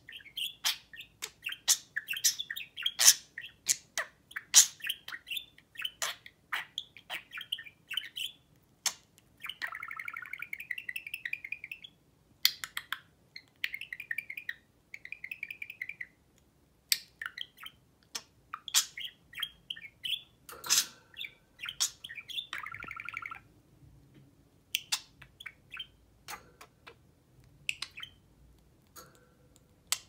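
Budgerigars chirping and warbling in quick chattering runs, mixed with many sharp clicks. The chatter is busiest in the first several seconds and thins to scattered clicks and short chirps near the end.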